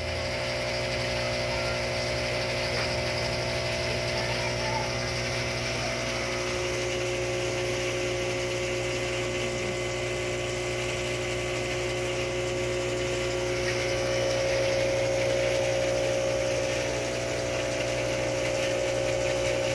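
Aquarium pumps running with a steady motor hum over water splashing from the return outlet onto the tank surface. A second hum tone joins about six seconds in, and the sound grows slightly louder near the middle.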